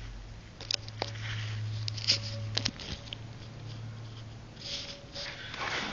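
Light metallic clicks and knocks, then a soft scraping, as the motor and crankcase assembly of a cut-open Copeland compressor is lifted out of its shell and set down. A steady low hum runs under the first half and stops abruptly.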